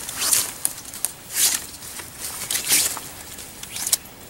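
Rope sliding and rubbing as a ridge line is pulled tight through a bowline looped around a tree: three swishes about a second apart, then a short sharp click near the end.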